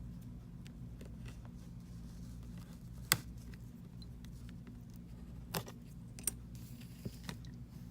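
A few sharp, scattered clicks, the loudest about three seconds in, from a pry tool working an iPhone's display free of its frame and metal clips, over a steady low hum.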